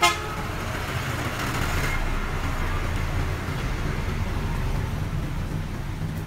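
Road traffic passing on the street: a steady low engine rumble with a wash of road noise that swells over the first few seconds and then eases. A short, sharp pitched blip sounds right at the start.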